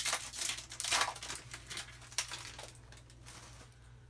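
Plastic wrapper of a trading card pack crinkling and tearing as it is opened by hand, in a run of short crackles that thin out over the second half.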